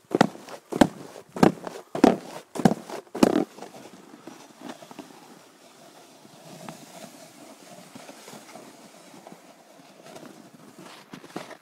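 Footsteps in snow, about one step every 0.6 seconds, stopping about three and a half seconds in; after that only faint rustling noise.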